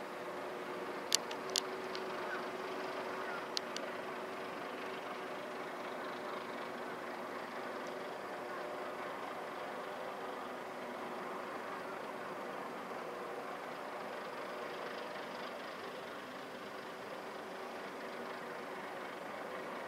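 A steady engine hum at idle over outdoor noise, with a few sharp clicks: two about a second in and one near four seconds.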